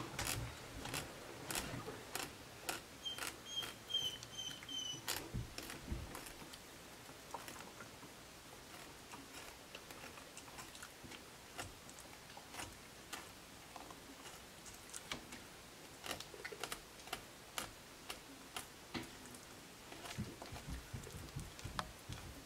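Fillet knife cutting through a northern pike's flesh along the Y bones on a cutting board: soft, irregular clicks and ticks. A few short high squeaks about three to five seconds in.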